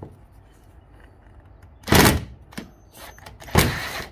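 Two short bursts from a Ryobi 18-volt cordless impact driver briefly turning a riv nut tool, one about two seconds in and one near the end, with a few small clicks between.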